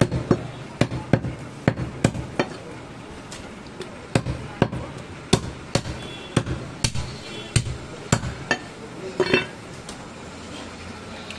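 A heavy curved cleaver chopping goat meat and bone on a wooden log chopping block: a run of sharp thuds, about two a second, that stops about nine and a half seconds in.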